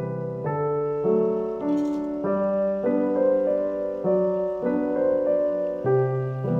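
Background piano music: gentle chords that change about every half second.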